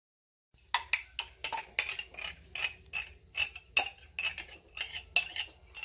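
Metal spoon scraping and clinking against the inside of a small glass canning jar while scooping out jam: a run of short, sharp clicks, about three or four a second, starting about half a second in.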